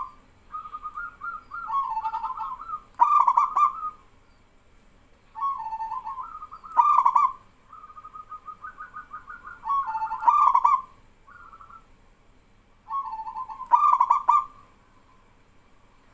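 Zebra doves (perkutut) cooing in repeated rolling phrases, four loud ones about every three to four seconds. Softer, quicker stuttering coos a little higher in pitch come between them, as the birds call back and forth.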